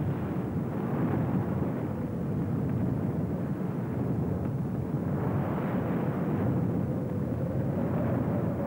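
Floodwater pouring over the crest of a dam in a huge cascade, making a steady, deep rushing noise.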